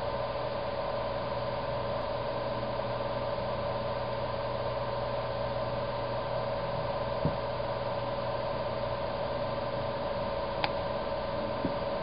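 A steady electrical or mechanical hum with several constant tones, and three faint, very short clicks near the middle and end; no cat vocalising.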